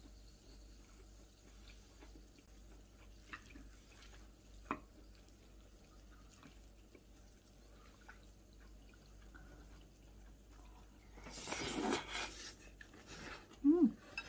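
Quiet room tone with a few small clicks of a wooden spoon against a ceramic plate as it breaks a fried egg into fried rice. Near the end comes a louder, rough scrape of about a second as the rice is stirred, then a brief squeak.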